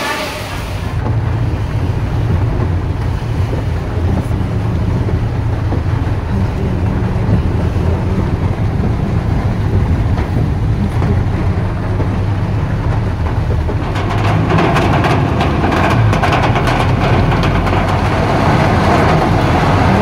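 Rain falling on a paved courtyard for about a second, then the low, steady engine and road rumble inside a car driving in heavy rain. About two-thirds of the way through, a louder rushing hiss with fine crackle joins in: rain on the car and wet tyres on a flooded road.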